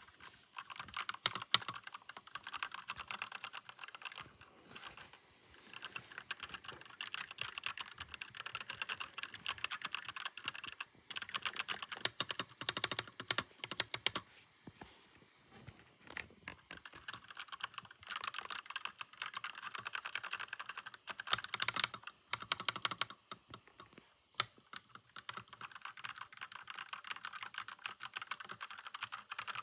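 Keys of an RK61 60% mechanical keyboard being typed on: fast runs of clicky key presses, broken by short pauses a few times.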